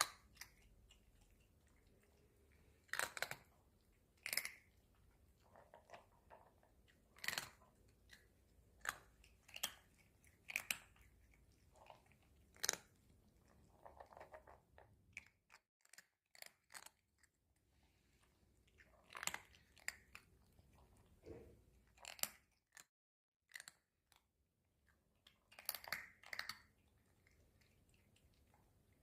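Crunchy chewing: something crisp being bitten and chewed, in sharp, crackling crunches that come in clusters every second or two, with quiet pauses between.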